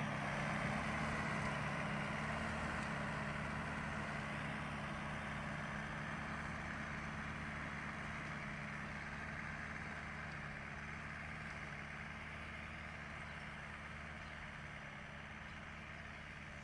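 Tractor's diesel engine running steadily as it pulls a tillage implement across a field, growing gradually fainter as it moves away.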